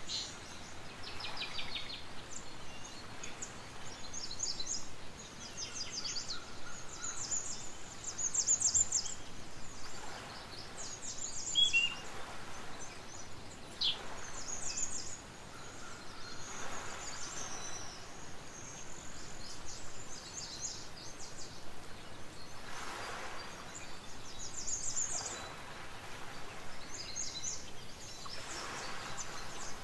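Birds chirping: short, high trills recurring every second or two over a steady background hiss.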